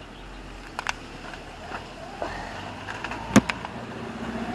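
Toy remote-control car running with a low steady hum, a few light clicks, and one sharp click a little over three seconds in.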